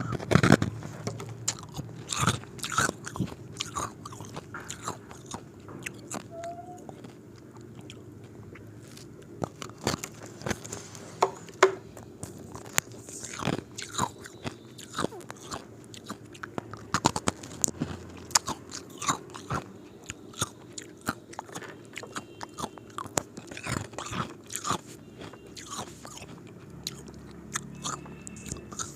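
Square ice cubes being bitten and chewed close to the microphone: repeated sharp, irregular crunches and cracks of the ice breaking between the teeth, over a steady low hum.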